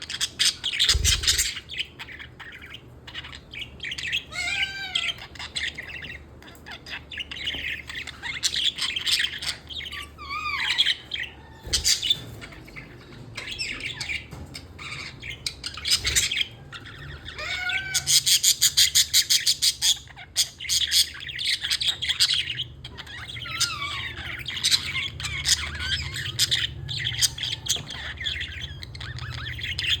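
Budgerigar chattering and warbling, a happy budgie sound: a busy stream of chirps, short whistled glides and squawks, with a fast run of clicking notes about eighteen seconds in.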